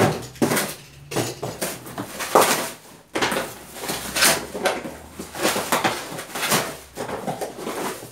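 Cardboard shipping box being opened by hand: tape torn, flaps pulled back, and packaging rustling, with items inside knocking together as they are taken out, in a run of irregular scrapes and knocks.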